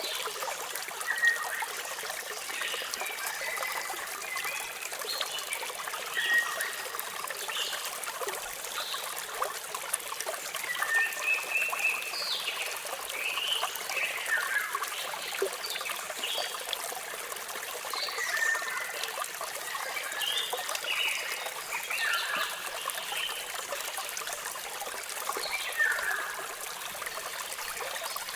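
Waterfall running with a steady rush, with birds chirping over it in short, scattered calls.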